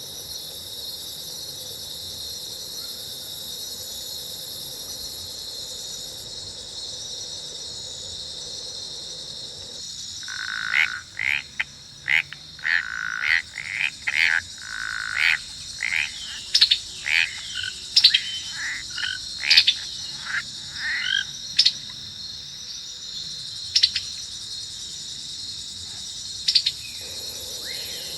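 Jungle ambience sound effect: a steady high insect drone, joined about ten seconds in by a run of loud, quick animal calls, many sliding up or down in pitch, which go on for some fifteen seconds and then stop.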